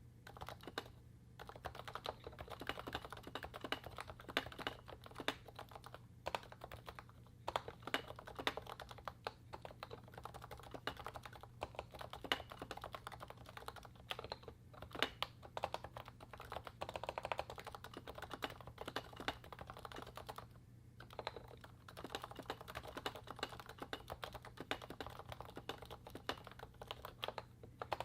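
Continuous fast typing on a Realforce 87U Topre keyboard, with 55 g electrostatic-capacitive rubber-dome switches, lubed Novatouch sliders and DEV/TTY MT3 PBT keycaps. The keystrokes run densely and irregularly, broken by a few brief pauses.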